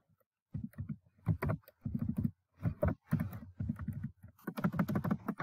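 Typing on a computer keyboard: a run of irregular, clicky keystrokes starting about half a second in and coming faster near the end.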